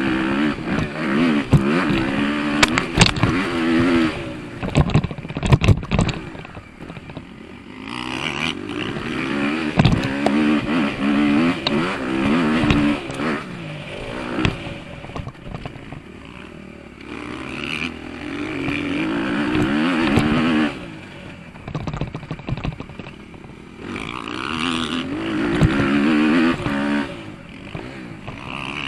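Motocross bike engine heard from on board, revving up and easing off over and over as the rider works the throttle and gears around the dirt track. There are several sharp knocks about five seconds in.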